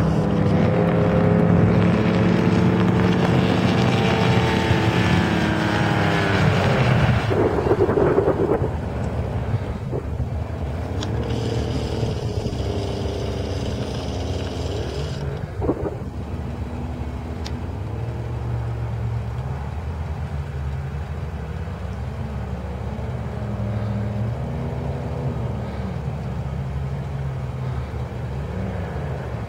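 Outboard motor on a Hydrostream performance boat running at speed, its pitch sliding down as it passes close by about seven seconds in. It then runs quieter, the pitch rising and falling several times as the throttle changes through turns.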